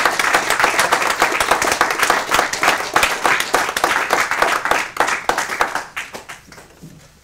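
Audience applauding, with many hands clapping densely at first, then thinning out and dying away near the end.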